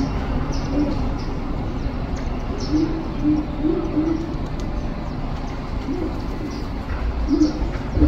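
A dove cooing: a run of short low coos in the middle, then two more spaced out towards the end. Small birds chirp briefly and high throughout, over a steady low background rumble.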